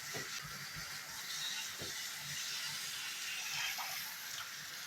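Shower head spraying a steady stream of water onto a furnace air filter as it is rinsed clean.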